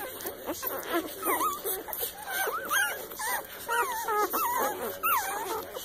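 Newborn puppies squeaking and whimpering as they nurse, many short thin cries that rise and fall in pitch, some overlapping.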